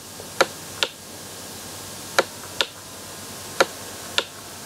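Stylus tip clicking against a tablet as handwriting is drawn: six sharp clicks in three pairs, each pair about half a second apart, over a steady faint hiss.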